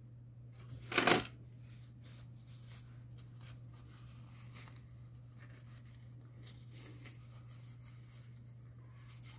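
Close-up handling noises from small hand work on a loudspeaker cone: a short loud rustle about a second in, then faint scratching and light taps, over a steady low hum.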